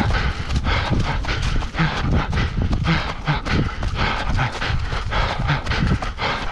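Running footsteps on a forest trail at a canicross runner's race pace: a quick, even rhythm of footfalls, about three a second, over a constant low rumble.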